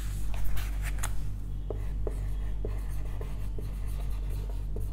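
Marker pen squeaking and tapping in short strokes on a whiteboard as a word is written, over a steady low hum.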